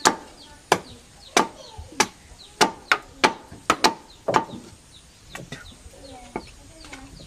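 Hand wood carving: a metal hammer striking the wooden handle of a chisel driven into a block of wood. A steady run of sharp knocks, about one every two-thirds of a second, thinning to a few fainter taps after about four and a half seconds.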